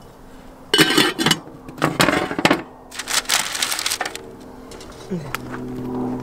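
A stainless steel lid clanking onto a small stainless saucepan: a ringing metallic clank about a second in, more clatter a second later, then a rustle. Low steady tones come in for the last couple of seconds.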